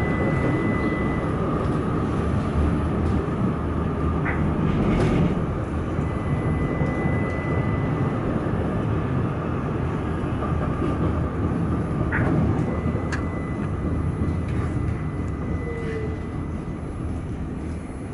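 Duewag tram running along its tracks, heard from inside the car: a steady rumble with a thin high tone that comes and goes and a few sharp clicks.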